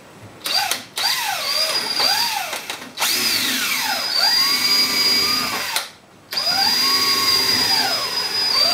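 Cordless drill boring a 10 mm hole at an angle through a plastic poly riser pipe held in a vise. It runs in several bursts, its whine rising and falling with the trigger, with a brief stop about three seconds in and a longer one about six seconds in.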